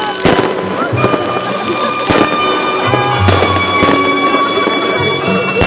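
New Year fireworks: a few sharp bangs roughly every couple of seconds, over long high whistling tones that drift slowly in pitch from whistling rockets.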